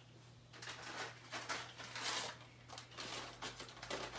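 Clip-on lapel microphone being handled and rubbing against clothing as its cable is taken off: irregular rustling and scraping, starting about half a second in.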